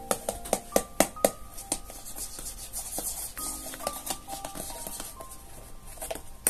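Background music, a light melody of short notes. Over it are scattered clicks and rubbing from hands handling a cardboard box, loudest in the first second or so.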